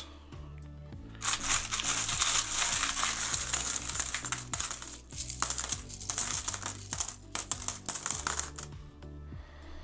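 A hand rummaging through a tub of loose mixed metal coins: continuous clinking and jingling that starts about a second in and dies away near the end.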